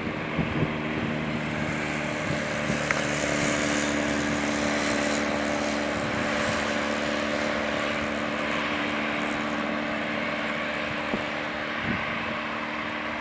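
Boeing 737-800 jet engines running at low thrust as the airliner taxis and lines up on the runway: a steady jet whine over a low hum.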